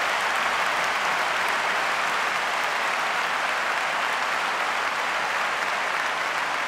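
A large crowd applauding steadily in a big indoor arena.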